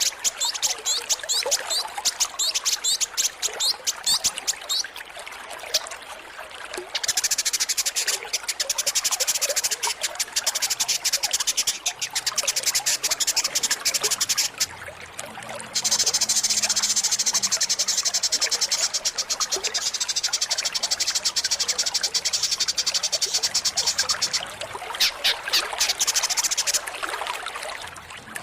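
A chorus of small calling animals, frogs or insects. Runs of quick, rising, high-pitched chirps come near the start and again near the end. Between them a dense, steady, high buzzing trill runs from about 7 seconds in, breaking off briefly around 15 seconds.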